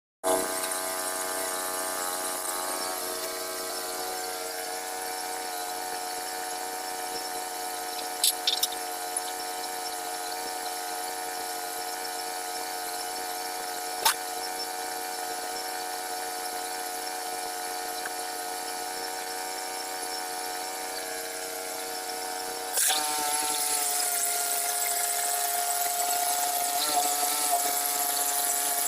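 Bandsaw sawmill's small gasoline engine running steadily, with a few sharp clicks. About 23 seconds in, its note shifts and it gets louder.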